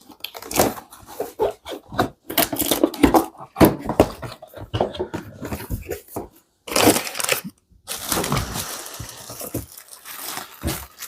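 Plastic packaging crinkled and rustled by hand in irregular crackling bursts, with a brief pause a little past the middle.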